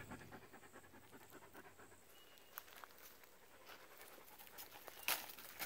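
A greyhound panting faintly, with a short rustle about five seconds in.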